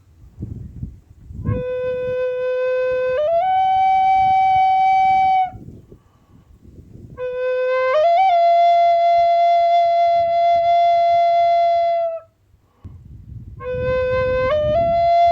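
A wind instrument blown in three long held phrases. Each begins on a low note and steps up once or twice to a higher held note, with short pauses between phrases.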